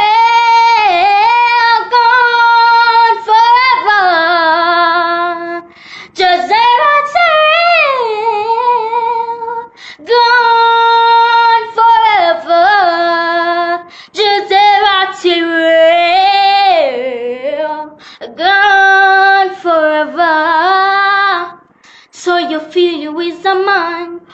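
A young girl singing solo and unaccompanied, holding long notes and sliding through vocal runs in phrases of about four seconds, with short breaths between them.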